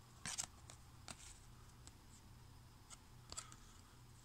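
Faint handling of cardboard trading cards: a few soft clicks and scrapes as cards slide off and against one another, over a faint low hum.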